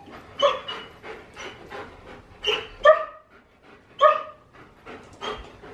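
German Shepherd barking at the protection helper in a string of short single barks at uneven spacing, the loudest about three and four seconds in.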